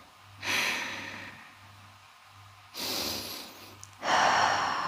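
A person breathing audibly while holding a yoga stretch. There are three breaths: one about half a second in that fades out, then two more near three and four seconds in.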